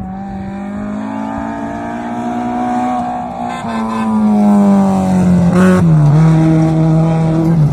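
A rally car's engine running hard as the car comes closer and gets louder. Its note drops sharply about six seconds in and carries on lower.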